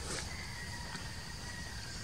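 Outdoor background sound: a steady high-pitched hum with a faint, long whistle-like tone that falls slightly in pitch.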